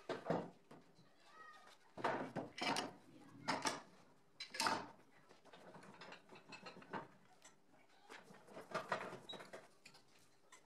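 Metal clanks and knocks as steel clamps and the steel clamping rack are handled and tightened around a wooden door panel: several separate sharp hits, a few seconds apart, with quieter rattling between them.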